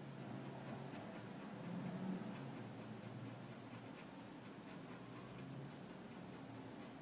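A very fine 0.05 pen scratching faintly on paper in quick short strokes, several a second, drawing fine fur hairs.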